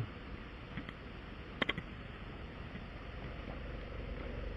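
A few light clicks, a quick cluster of three about a second and a half in, over a steady low hum.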